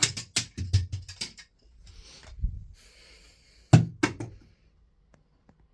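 A plastic smoke alarm and a plug-in air freshener thrown down a flight of stairs, clattering in a rapid run of knocks that thins out after about a second. Two more sharp knocks follow about four seconds in.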